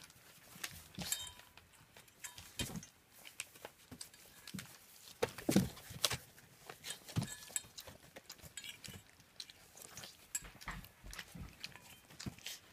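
German Shepherd puppies eating dry kibble from stainless steel bowls: irregular crunching and clicking of teeth on kibble and against the bowls, busiest and loudest a little past the middle.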